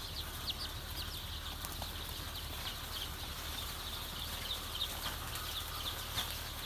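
A brood of two-day-old BV 380 brown-egg layer chicks peeping: many short, high, falling cheeps scattered throughout, over a low steady hum.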